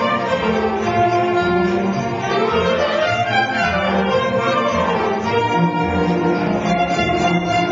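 High school philharmonic orchestra playing, with bowed strings to the fore, at an even loudness.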